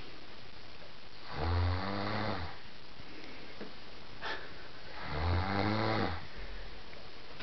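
A sleeping woman snoring: two long, low snores about three and a half seconds apart.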